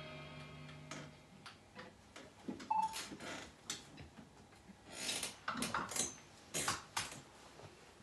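The band's last chord on electric guitar and bass fades out about a second in, followed by scattered light clicks, knocks and rustles of instruments and gear being handled as the playing stops.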